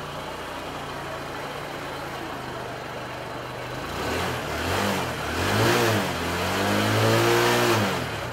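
Motorcycle engine idling, then revved several times in rising-and-falling pulls from about halfway through, the last held for about two seconds before dropping back; the revs push its exhaust through a hose into a flask of solution.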